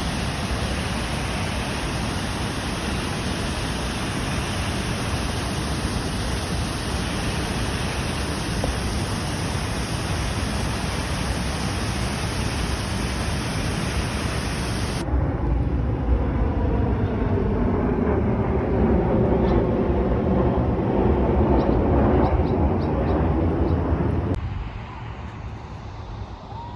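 Düden Waterfall's water pouring down in a steady loud rush. The sound changes abruptly about halfway through to a lower, heavier rush, then drops to a quieter rush near the end.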